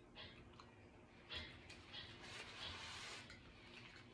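Faint close-miked chewing: soft wet mouth clicks and smacks, thickening into a longer stretch of denser smacking from about a second in until past three seconds.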